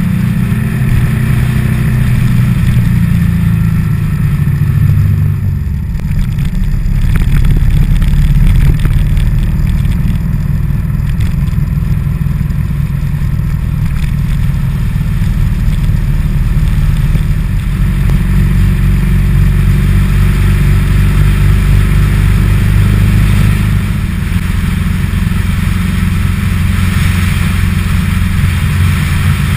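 Motorcycle engine running steadily at road speed, heard from a camera mounted on the bike, with road and wind noise over it. The engine note eases off briefly about five seconds in, then picks up again.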